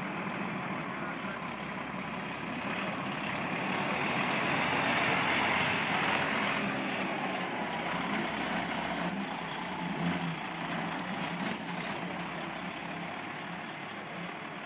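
DAF XF 105 tractor unit's six-cylinder diesel engine running at low speed as the truck manoeuvres slowly through a cone course, loudest as it passes close about halfway through, with a short knock about ten seconds in.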